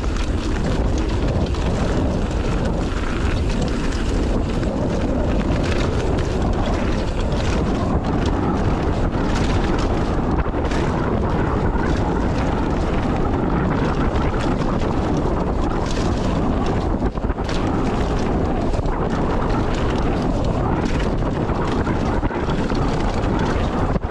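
Wind buffeting an action camera's microphone over the rumble and rattle of a mountain bike riding fast down a dirt trail, with frequent small clicks and knocks throughout.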